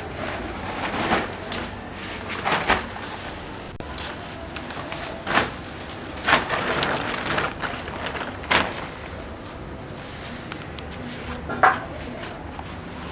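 Plastic bags and sacks being handled while rations are packed: several short crinkling rustles, the sharpest near the end, over a steady background noise.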